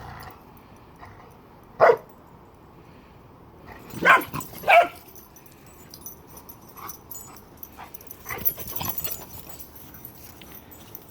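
A dog barking: single short barks, one about two seconds in and two close together about four seconds in, with fainter yips later.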